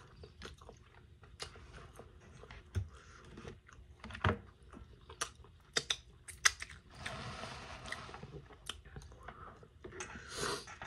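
Close-miked chewing of chicken wings: irregular wet clicks and lip smacks. There is about a second of breathy noise around seven seconds in, and another just before the end.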